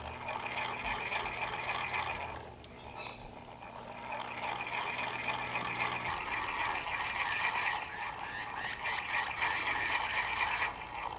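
Small solar-powered motor driving a plastic toy gearbox, whirring and rattling quickly as it turns a toy helicopter round on its arm in sunlight. The motor falters briefly a couple of seconds in, then picks up again.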